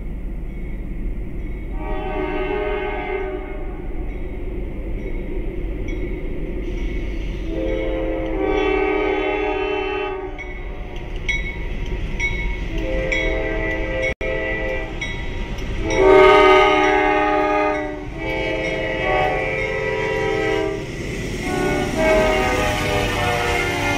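Diesel freight locomotive's multi-chime air horn sounding a series of long blasts with a shorter one between them as the train nears a grade crossing. The loudest blast comes about two-thirds of the way through, and the locomotives reach the crossing near the end over a steady low rumble of the train.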